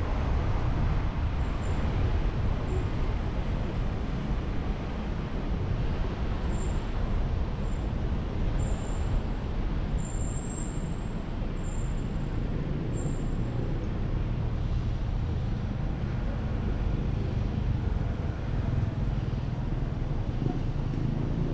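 Steady road noise and engine rumble of a car driving through city traffic, with a deep even rumble and no sudden events.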